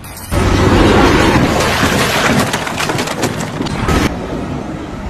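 A sudden loud crash, followed by about three and a half seconds of crackling and snapping, like something breaking apart, dying down near four seconds.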